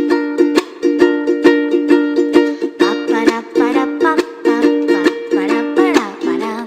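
Background music: an instrumental passage of a pop love song, with a ukulele-like plucked string instrument picking a quick run of notes.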